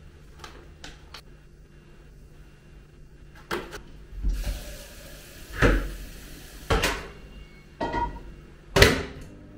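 Kitchen clatter: cupboard doors and dishes knocking, about four sharp knocks spread over a few seconds, with a short hissing rush partway through.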